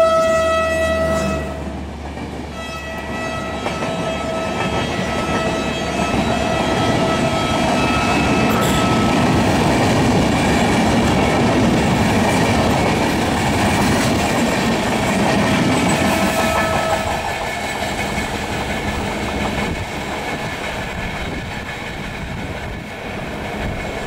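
An Indian Railways electric locomotive's horn blares and drops slightly in pitch as the engine passes close by, then fades within the first two seconds. A long rake of Shatabdi Express coaches then runs past at speed with steady wheel-on-rail noise. Fainter horn tones carry on over it until about two-thirds of the way through, and the train noise eases as the train recedes.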